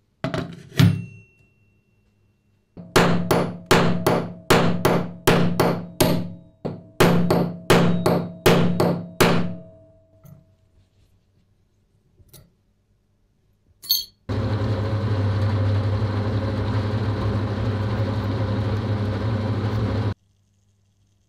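A couple of knocks, then about a dozen sharp hammer blows on a punch, roughly two a second, each with a short metallic ring. After a click, a drilling machine runs steadily with a low hum for about six seconds as it drills into a steel plate, then stops suddenly.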